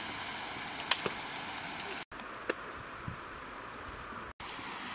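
Steady outdoor background hiss by a river, with a few light clicks. A thin, steady high insect whine runs through the middle stretch, and the sound breaks off for an instant twice.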